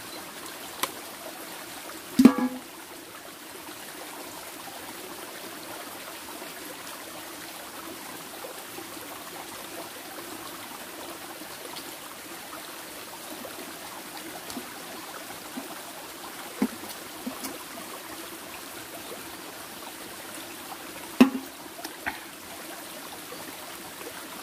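Small rocky mountain stream flowing and trickling steadily. A few brief knocks and handling noises stand out above it, the loudest about two seconds in and again near the end.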